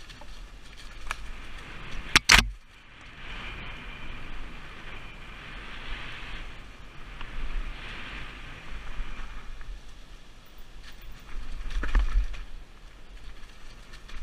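Mountain bike running fast down a dirt forest trail, heard from a helmet camera: wind buffeting on the microphone and tyres rolling over dry leaves and dirt. A sharp, loud knock about two seconds in, and a smaller jolt near the end.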